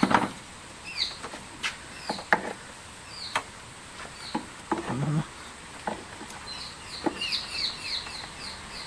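Scattered clicks and knocks of metal parts being handled as a scooter's starter motor is refitted, the loudest near the start. A small bird chirps now and then, then in a quick run of chirps through the second half.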